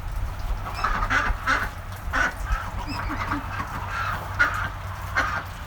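Farm ducks or geese calling, a string of about a dozen short quacks or honks at irregular intervals.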